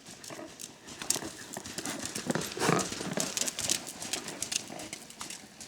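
Horse's hooves striking in a steady working-trot rhythm. A louder, fuller sound rises over the hoofbeats about two and a half seconds in.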